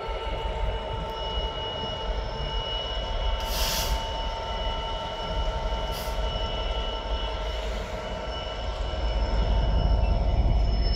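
A passenger train at a station platform: a steady low rumble with a high, steady whine over it. There is a brief burst of hiss about three and a half seconds in, and the sound grows louder near the end.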